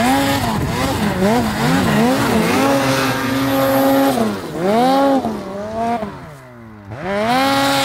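Snowmobile engine revving up and down as the throttle is worked, easing off to a lower, quieter note about six seconds in, then revving up again near the end.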